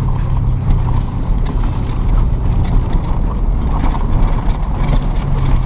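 Truck driving on a rough dirt road, heard from inside the cab: a steady low engine and road rumble with many small clicks and rattles.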